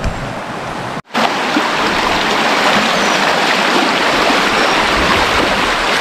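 A shallow stream rushing steadily over rocks, louder after a sudden brief break in the sound about a second in.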